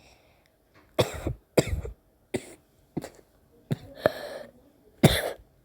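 A person ill with a 38.8° fever coughing repeatedly: about seven short, harsh coughs in a row.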